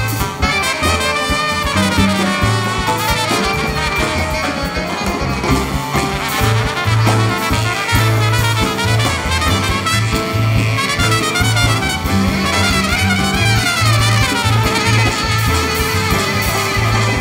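Live jazz band playing, with saxophones and trumpet over drums and a bass line; the horn lines run down and back up in pitch a couple of times.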